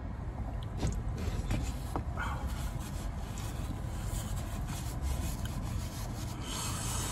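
Steady rubbing and rustling noise over a low rumble. Partway through, a paper napkin is wiped across the mouth.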